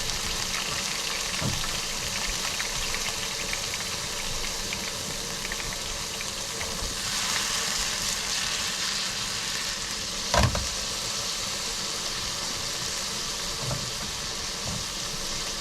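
Food sizzling steadily in a hot pan, the sizzle swelling for a couple of seconds about halfway through. A single sharp knock, like the pan or a utensil being knocked, comes about ten seconds in.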